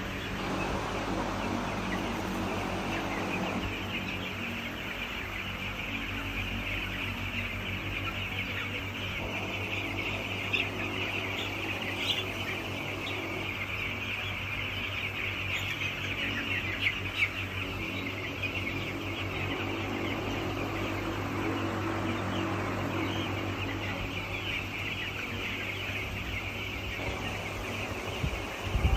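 A large flock of young broiler chicks peeping together in a dense, steady chorus of high chirps. A steady low hum runs underneath.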